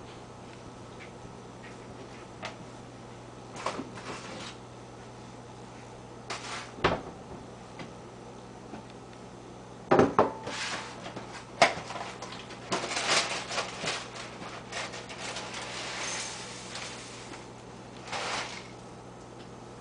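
Kitchen handling sounds: a few knocks from cabinet doors and dishes, then a ceramic bowl set down on the counter with a loud clack about halfway through. Dry crisp rice cereal is then poured into the bowl, rattling for about four seconds. A short rustle near the end comes from the cereal box.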